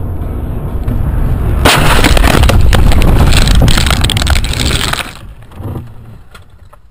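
Car crash heard from inside the dashcam car: steady road and engine rumble, then about a second and a half in a sudden loud crash of crunching metal and breaking glass that lasts about three seconds before dying away to a few knocks.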